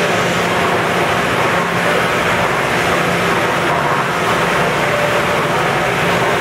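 Commercial flight-type dish machine and its conveyor running: a steady, loud mix of machine noise with a constant low hum.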